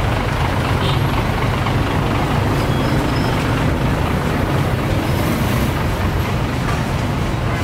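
Steady low rumble of motor traffic running evenly, with no single standout event.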